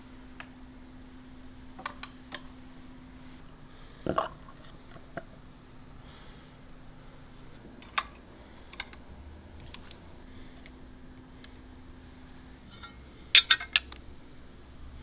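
Turntable parts being handled and fitted by hand: scattered light metal clicks and taps, a louder knock about four seconds in, and a quick cluster of sharp clinks near the end, the loudest of all. A faint steady hum runs underneath.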